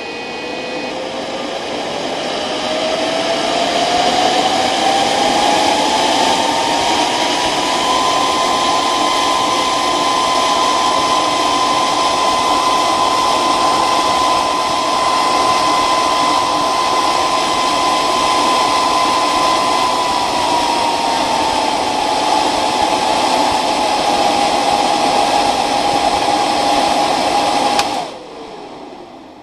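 A computer whirring with a loud whine that the owner puts down to a hard drive fault. The whine rises steadily in pitch for the first several seconds and holds steady, then drops a little about two-thirds of the way through. Near the end it cuts off suddenly and winds down.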